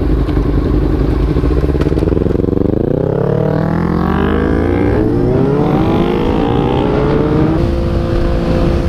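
Sport motorcycle engine accelerating: its pitch climbs for several seconds from about a third of the way in, then holds steady near the end.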